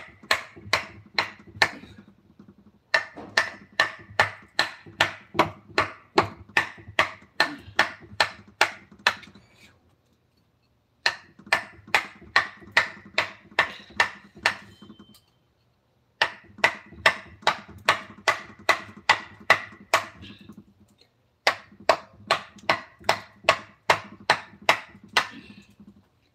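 Wood-carving chisel being driven with a mallet: sharp, ringing strikes about two to three a second, in runs of several seconds with short pauses between.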